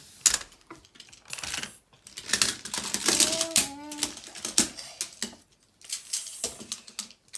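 Plastic magnetic building tiles clicking and clacking together as they are handled and snapped into place, a quick irregular run of clicks. A child's voice sounds briefly near the middle.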